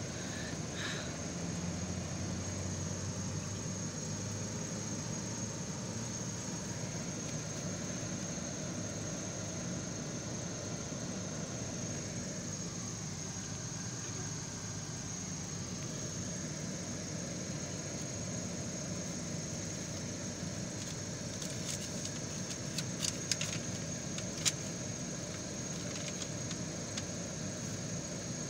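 Car engine running at idle and low speed, heard from inside the cabin as a steady low rumble with a thin high whine over it. A few sharp clicks come about three-quarters of the way through.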